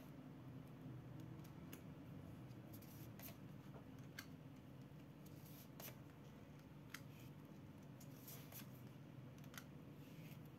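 Near silence: room tone with a faint steady low hum and scattered faint small clicks and taps.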